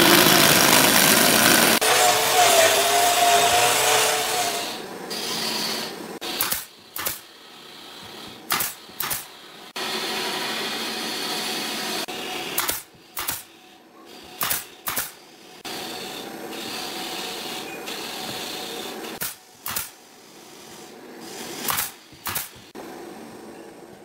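Cordless drill driving a screw into a wooden panel, running steadily for about four seconds. Then a pneumatic brad nailer firing nails into pine boards: about eleven sharp shots, mostly in quick pairs, a second or more apart.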